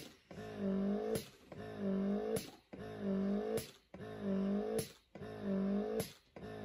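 Lansinoh Signature Pro double electric breast pump running its suction cycle. It gives a motor hum that dips and rises in pitch, then a sharp click, repeating about once every 1.2 seconds, five or six times here.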